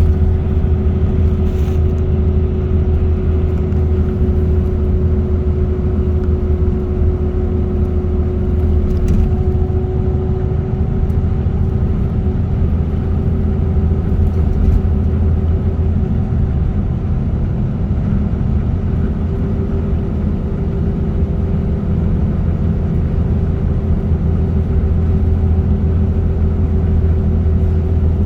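Car cruising at expressway speed: a steady low drone of engine and tyres on the road, with a faint steady hum above it.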